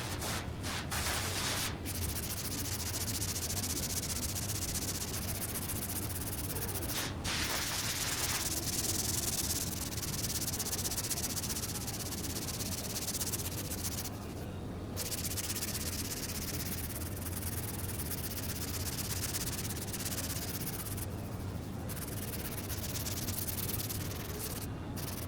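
Sanding body filler on a car door: a steady scratchy hiss broken by a few brief pauses.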